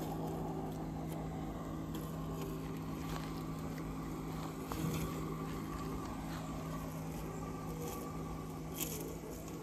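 Terramow Vision robotic lawn mower running in its mowing phase: a steady electric motor hum.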